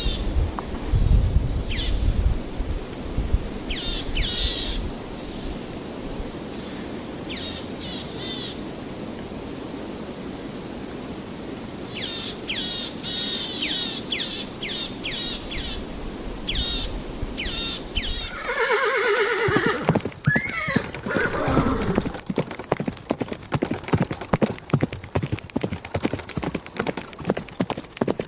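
A run of short, high calls that fall in pitch. Then a horse whinnies once, and its hooves clip-clop in a quick, steady beat.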